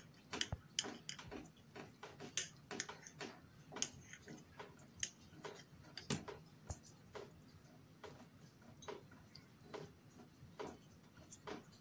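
Steel kitchen knife clicking against a ceramic plate while cutting steamed egg into pieces: light, irregular clicks, a few each second.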